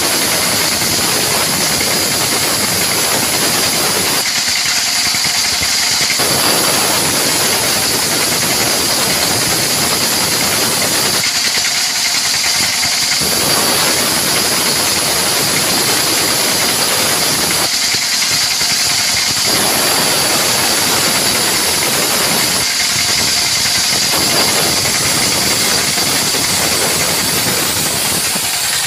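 Band sawmill running and sawing a mahogany log: a loud, steady mechanical noise with a hiss and a high steady whine. The lower part of the noise eases for a second or two about every six seconds.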